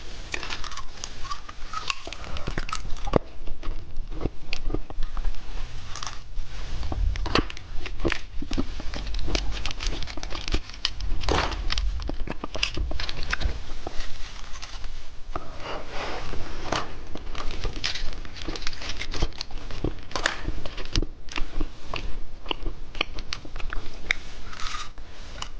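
Plastic candy packaging crinkling and tearing as a shovel-candy pack is handled and opened, with dense irregular crackles throughout.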